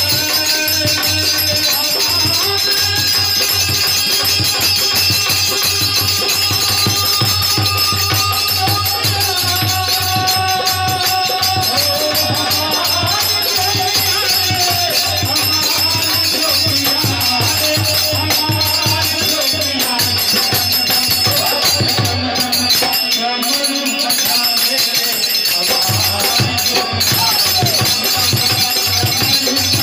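Bhojpuri Shiv bhajan performed live: a male voice singing over a steady low beat, with the continuous jingling of small hand cymbals (manjira).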